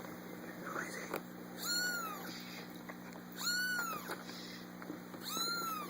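A kitten meowing over and over, three high, arching cries about two seconds apart; the owner takes it to be a hungry runt wanting a bottle.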